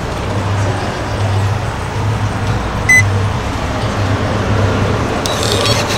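Ticket-dispensing machine with a steady low hum and one short electronic beep about halfway through, then a quick burst of rattling clicks near the end.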